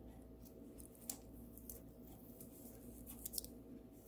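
A few faint, sharp clicks and taps of diamond-painting supplies being handled, once about a second in and a small cluster around three seconds in, over a steady low hum.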